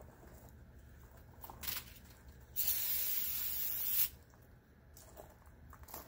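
Aerosol can of brake parts cleaner sprayed in one steady hissing burst lasting about a second and a half, starting about two and a half seconds in.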